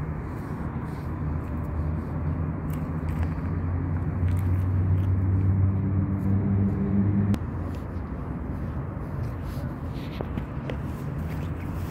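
Low outdoor rumble of a motor vehicle engine over background traffic noise. The engine hum grows louder about three seconds in and cuts off abruptly about seven seconds in.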